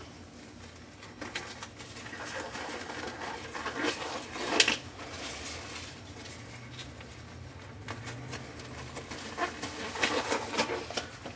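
Light rustling and handling sounds with scattered clicks and taps as gloves are pulled onto the hands, with one sharper click about four and a half seconds in and a run of taps near the end.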